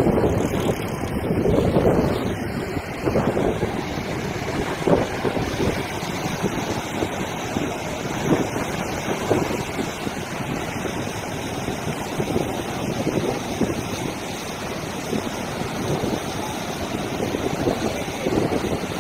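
Wind buffeting the microphone in gusts over the wash of waves breaking on a beach.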